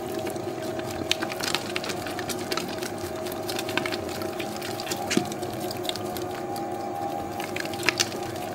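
Spiral dough mixer running steadily, its motor humming while the hook kneads a soft, wet dough, with irregular slaps and clicks of the dough against the steel bowl.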